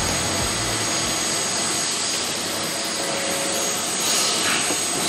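Steady machine-like rushing noise with a faint high whine running through it, and a brief louder hiss about four seconds in. Background music fades out about a second in.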